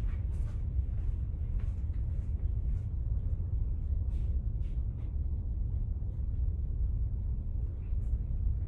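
Steady low room rumble with faint footsteps, a run of soft taps over the first five seconds or so and one more near the end.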